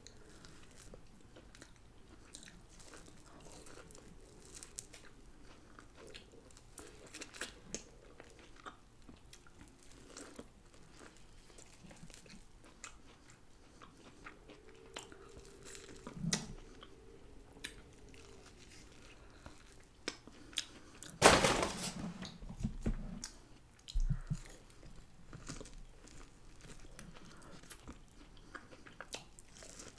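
A person chewing and biting into crunchy food, with small wet mouth clicks throughout and a loud crunch about two-thirds of the way in, then another a few seconds later.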